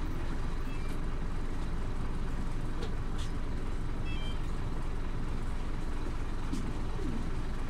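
Scania OmniLink CK270UB city bus running: a steady low rumble of engine and road noise, with a few faint short high beeps about a second in and again around four seconds.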